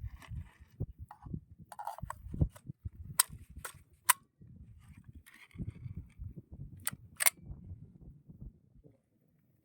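Lee-Enfield No.5 Mk I jungle carbine being handled: a series of sharp metallic clicks and snaps, three in quick succession about half a second apart, the last the loudest, then two more a few seconds later, over low rustling handling noise.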